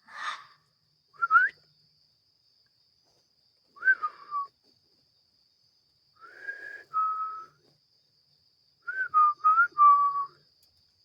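A series of short whistled calls in five bursts, some sliding up, some sliding down, some held on one pitch, the last a quick run of several notes, over a steady high-pitched insect drone.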